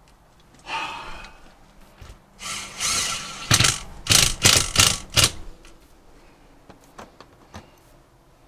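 Handling noise from work with tools or parts: a scrape, then a run of about five loud, sharp scraping rattles around the middle, followed by a few light clicks.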